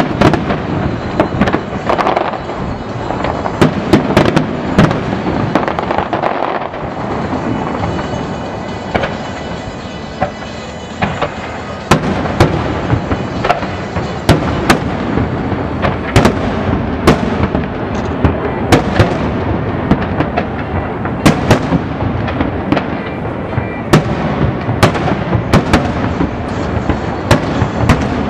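Aerial fireworks display: many sharp bangs and booms from bursting shells over a continuous crackle. The bangs thin out for a few seconds about ten seconds in, then come thick and fast again.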